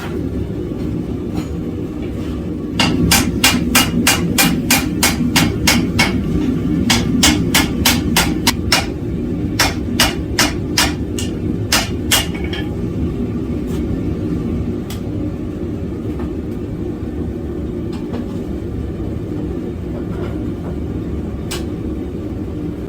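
Hand hammer striking hot steel on an anvil: a run of ringing blows about three a second, with a brief break partway, then a few single blows, as a forge weld is hammered together. A steady roar, the propane forge burner, runs underneath.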